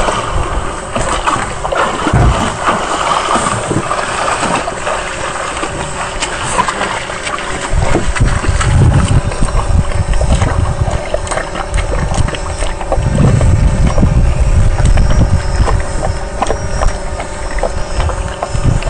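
Boat engine running steadily, with heavy low buffeting on the microphone coming in gusts about eight and thirteen seconds in.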